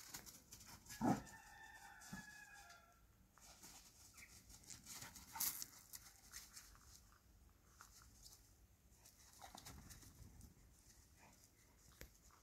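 A dog's paws scuffing and crinkling on plastic weed-control fabric, with a sharp knock about a second in. Just after the knock comes a drawn-out animal call of about a second and a half, then scattered faint ticks and rustles.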